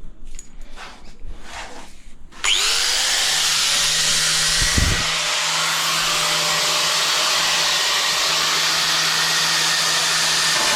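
A 40 mm hole saw on a power drill is set against a tile with a few light scrapes. About two and a half seconds in it spins up with a short rising whine, then runs steadily as it cuts into the tile.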